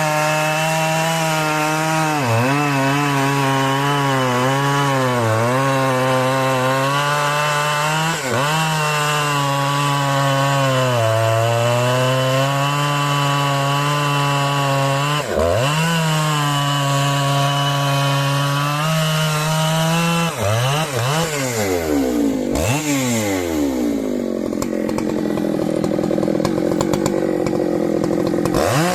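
Two-stroke chainsaw running near full throttle while cutting wood, its engine note dipping now and then as the chain bites. About two-thirds of the way through, the engine pitch repeatedly falls and rises as the throttle is let off and opened again.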